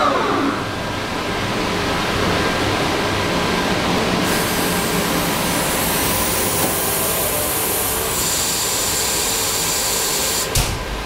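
Masterwood Atlas 5XL five-axis CNC machining center running: a steady machine noise, with a high hiss coming in suddenly about four seconds in and a thin high whine added from about eight seconds. A brief knock near the end.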